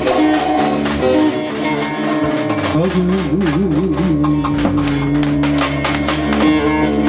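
Instrumental Turkish folk music: a bağlama (long-necked saz) played with quick plucked and strummed strokes over held keyboard tones and a beat, with a warbling held note about three seconds in.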